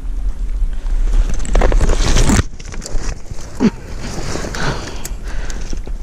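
Wind rumbling on the microphone, with rustling of dry reeds and light splashing as a pike is handled in the shallows. A short groan of pain comes a little past the midpoint.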